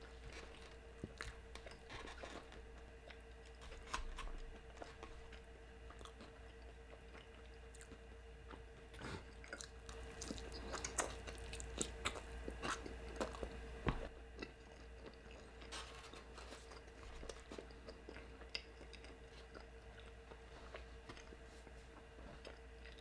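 Close-up eating of cheesy carne asada fries: faint, scattered chewing and biting sounds with soft crunches and wet clicks, busiest in the middle, over a steady faint hum.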